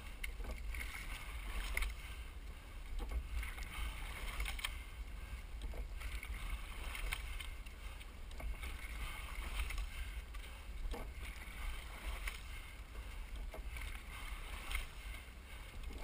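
Racing double scull being rowed steadily: a regular knock from each oar stroke about every second and a half, over a steady rush of water along the hull and a low rumble.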